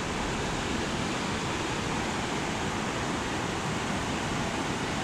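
Steady rushing of a fast-flowing mountain river, an even noise that does not change.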